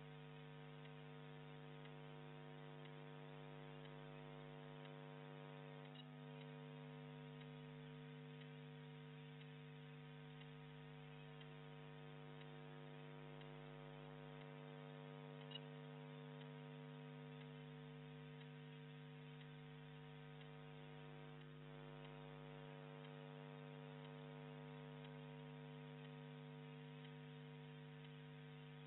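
Near silence apart from a steady, faint electrical mains hum with many overtones. There is a single faint click about halfway through.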